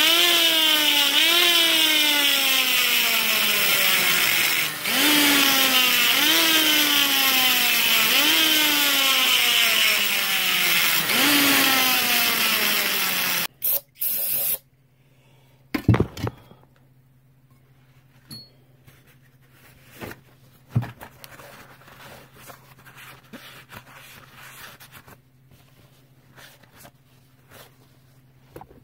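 Die grinder cutting into the cast-iron combustion chamber of a Chrysler 302 cylinder head, deshrouding around the intake valve. Its pitch sags as the bit bears into the metal and jumps back up as it is eased off, again and again about every second and a half. It stops about 13 seconds in, leaving a faint hum and a couple of light knocks.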